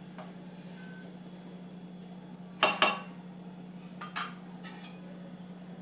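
Cookware clattering as a spatula and utensils knock against a kadai on the stove: a sharp double clank about two and a half seconds in, then two lighter knocks, over a steady low hum.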